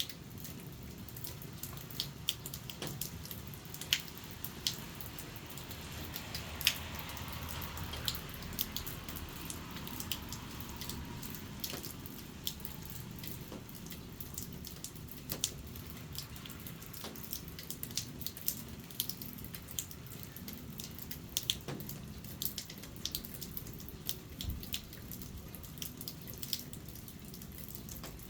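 Rainwater dripping from the eaves of a roof in the rain: irregular, sharp drops landing one after another, some louder than others, over a steady background wash of rain.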